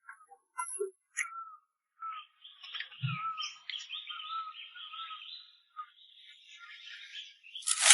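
Small birds chirping in quick, broken runs, with a single low thump about three seconds in.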